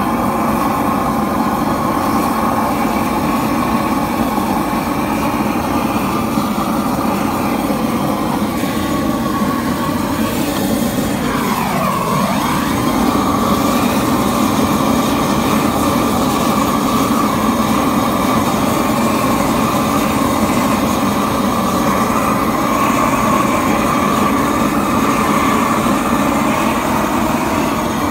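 Propane roofing torch burning steadily and loudly as its flame is played over icy concrete and pavers. The tone dips and comes back once, about twelve seconds in.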